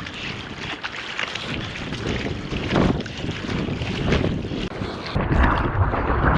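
Strong wind buffeting the microphone over the noise of breaking surf. About five seconds in, the wind rumble grows heavier.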